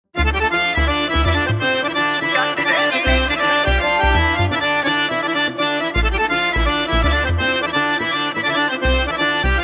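Instrumental opening of a Punjabi bhangra song: held melodic notes over a deep drum beat, with no singing yet.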